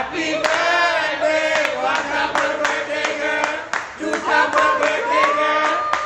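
A group of voices singing together in chorus for a birthday, with hand-clapping to the beat. About five seconds in, one voice slides up and holds a long high note.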